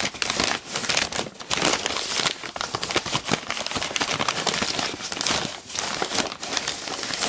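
Packing paper crinkling and rustling as a paper-wrapped item is lifted out of a cardboard box and unwrapped, with many sharp crackles.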